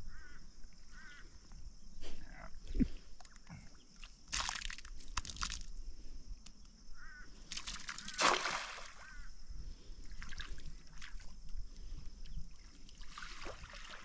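Shallow river water sloshing and splashing as a mud-crab pot is worked and thrown at the water's edge. The loudest splashes come about four seconds in and again around eight seconds. A few short, repeated bird calls sound in the background.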